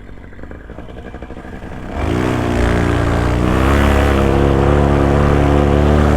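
Paramotor engine and propeller ticking over quietly, then throttled up sharply about two seconds in, the pitch climbing for a moment before holding steady at high power.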